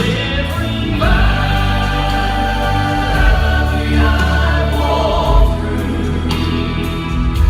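Gospel quartet singing in harmony with accompaniment, the voices holding long notes that change about every second.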